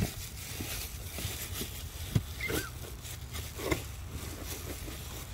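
Scattered light clicks and knocks of hands working on ignition coil packs in a car's engine bay, with one sharper click about two seconds in, over a steady hiss and low hum.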